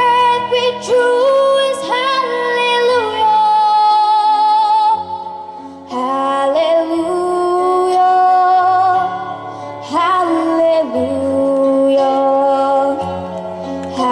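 A female voice sings long held notes with vibrato over a sustained instrumental accompaniment.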